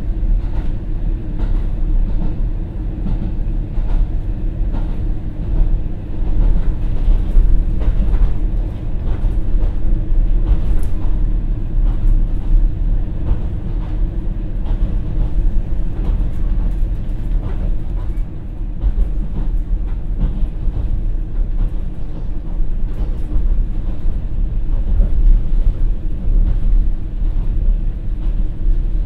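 Inside a KiHa 40 diesel railcar under way: its original, non-direct-injection DMF15HSA diesel engine runs with a steady drone while the wheels click over the joints of short rails.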